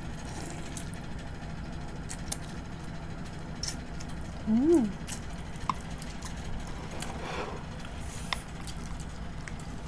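Two people eating rice noodles in curry broth: slurping noodles, with scattered light clicks of chopsticks and spoons on ceramic bowls. About halfway through, one of them gives a short rising-then-falling 'mmm', the loudest sound here, over a steady low background hum.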